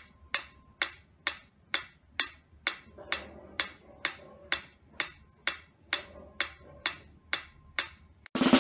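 Pyramid-shaped mechanical metronome ticking steadily, a sharp click a little over twice a second. Loud music cuts in near the end.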